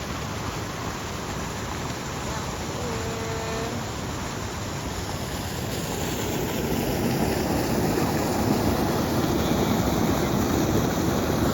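Rain-fed yard waterfall and runoff stream rushing steadily, growing louder about six seconds in.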